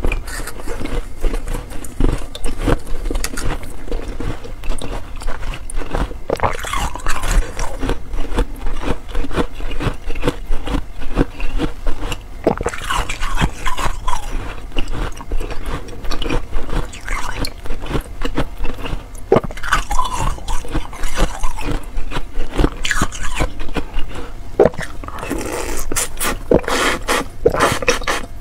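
Close, continuous crunching as frozen slush ice is bitten and chewed: dense, rapid crackles of ice breaking between the teeth.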